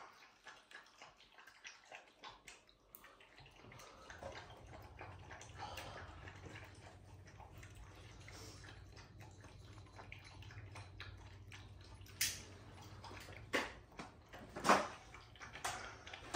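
Puppy eating from a stainless steel bowl on the floor: many small clicks of chewing and licking, with a few louder knocks near the end. A low steady hum comes on a few seconds in.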